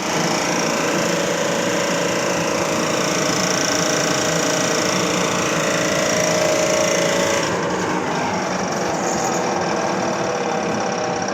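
Industrial blower running with a dense, rapid rattle. About seven and a half seconds in, the high hiss and a steady tone drop away while the running noise carries on.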